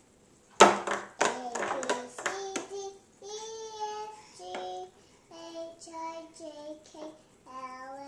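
A young child singing in a high voice, drawn-out wavering notes with short breaks. The singing follows a burst of several loud slaps or knocks about half a second in.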